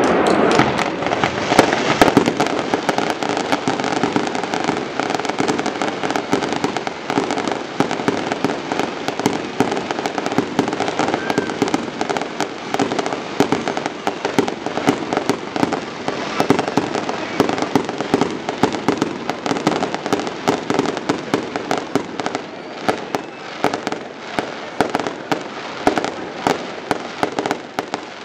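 Fireworks crackling and popping continuously, a dense stream of many small sharp bangs a second. The sound eases off slowly toward the end.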